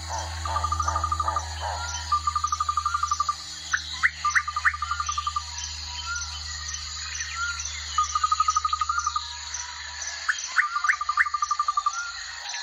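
Nature sound effect: a bird repeats quick trills about a second long, mixed with a few sharp rising whistles and short chirps, over fast, steady high-pitched insect chirping and a low hum.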